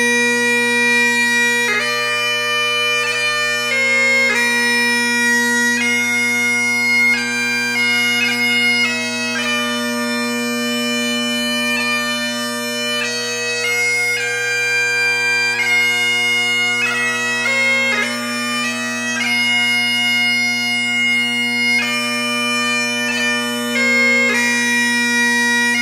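Bagpipe music: a melody of changing notes, some quick and short, played without a break over steady low drones.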